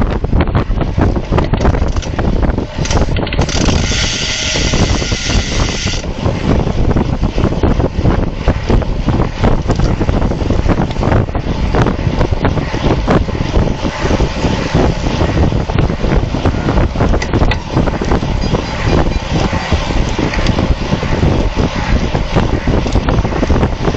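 Wind buffeting the microphone of a camera on a racing road bike at speed, a loud continuous rumble and rush. A brighter hiss comes in for about three seconds, a few seconds in.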